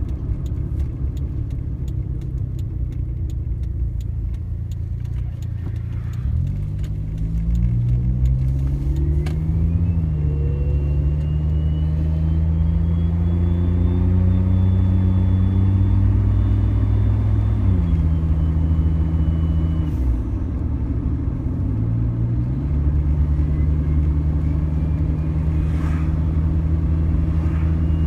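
Suzuki Jimny engine pulling away and accelerating through the gears about six seconds in, then holding steady. The engine note drops a little past halfway and picks up again, with a faint high whine rising and falling alongside it.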